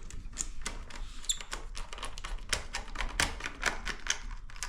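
Small screwdriver driving a screw into a laptop's plastic base cover: a quick, irregular run of light clicks and ticks.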